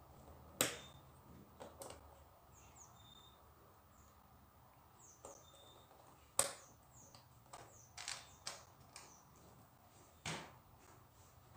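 Small plastic LEGO pieces clicking and tapping as they are picked up and pressed onto a LEGO baseplate: scattered sharp clicks a second or more apart, the loudest about half a second in and about six seconds in.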